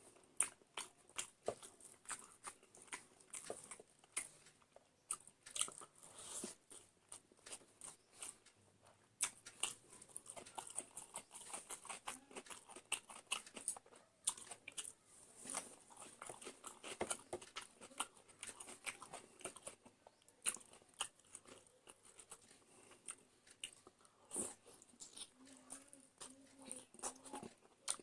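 Close-up chewing and mouth sounds of a person eating curry with rice: a steady run of irregular wet smacks, clicks and crunches.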